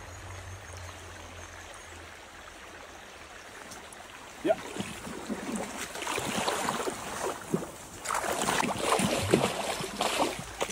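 A shallow stream running steadily. About four seconds in, irregular splashing starts and keeps on: an angler wading through the shallow water while playing a hooked trout.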